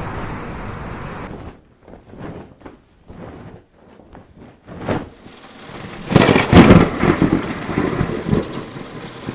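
Storm sound effects: a steady rain-like noise cuts off abruptly about a second in, followed by a few short rumbles. About six seconds in comes a loud thunderclap that rolls on and fades.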